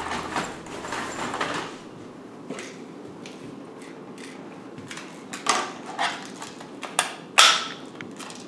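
Cloth rustling as a bundle on a couch is rummaged through, then a handful of sharp plastic clacks and clicks as toy handguns are picked up and handled, about five of them in the second half.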